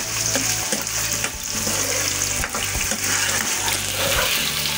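Potato chunks shallow-frying in hot oil in a nonstick pan, sizzling steadily, with occasional knocks and scrapes as they are turned over.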